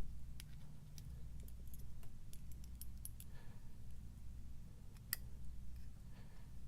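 Faint, scattered small metal clicks of pins and springs being worked into an American 1100 padlock cylinder during reassembly, with one sharper click about five seconds in, over a low steady hum.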